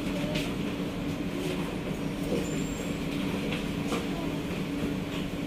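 Steady interior hum of a Kawasaki–CRRC Sifang C151A metro train at a station platform with its doors still closed, with a constant low tone and a few faint light clicks.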